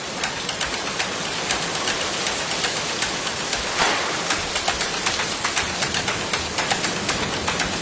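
Steady rain falling, with many sharp drop clicks over an even hiss and a brief louder swish about four seconds in.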